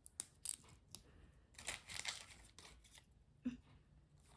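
Small plastic packaging being handled, crinkling and crackling in short bursts, with a denser rustle about halfway through.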